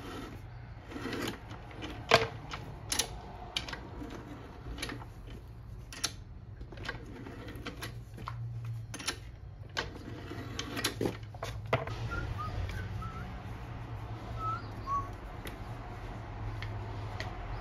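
Leather skiving machine at work as pieces of leather are fed through its blade and roller: scattered sharp clicks and taps over a steady low hum.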